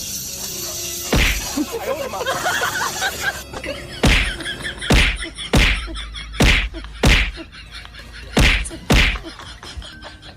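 A series of about eight sharp whacks: one about a second in, then seven more from about four seconds in, coming in rough pairs about half a second apart.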